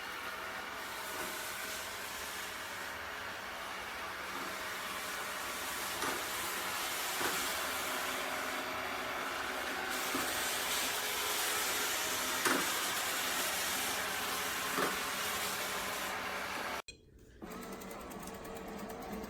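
ILIFE robot vacuum running with a steady whir from its motor and brushes, with a few light clicks and knocks along the way. The sound cuts out abruptly about 17 seconds in and resumes a moment later with a slightly different tone.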